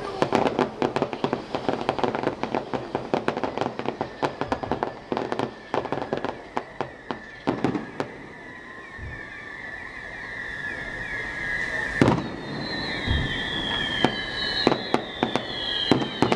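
A fireworks display: rapid crackling and popping bursts for the first half, then a high whistling tone with slowly falling glides, and a single loud bang near the end.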